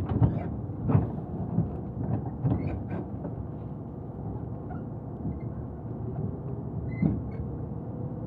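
Inside a Tobu Urban Park Line commuter train car in motion: a steady rumble of wheels on rail, broken by a run of loud clunks and rattles as the car jolts over the track in the first three seconds, and one more about seven seconds in. Through the second half a faint motor whine rises slowly in pitch.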